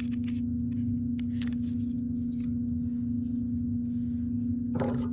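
A steady low hum with a rumble beneath it runs throughout. Over it come faint rubbing and scraping sounds of hands pressing a cardboard printing plate against paper, and a short papery rustle comes near the end.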